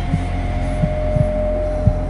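Dark, droning intro music: a low sustained hum with a held tone above it and soft low thumps like a heartbeat, about three in a second and a half.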